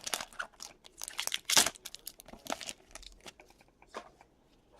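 Trading-card pack wrappers crinkling and tearing as packs are opened and cards handled, in irregular rustles that are loudest about a second and a half in and thin out toward the end.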